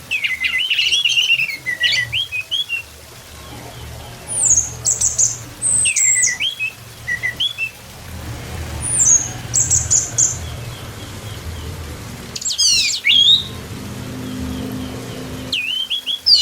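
Orange-headed thrush singing: short bursts of varied whistled phrases, sliding notes and rapid trills, with pauses of a second or two between them.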